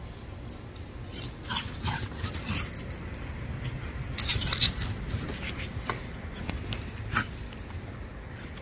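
An American Bulldog moving and sniffing in grass, making scattered short rustles and clicks, with a louder burst of rustling about four seconds in.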